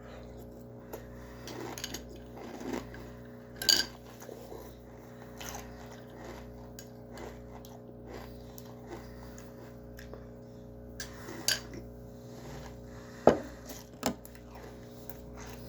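A person eating crunchy maple cereal in milk: soft, irregular crunching and chewing, with a few sharp clicks of a spoon against the bowl, the loudest near the end, over a steady low hum.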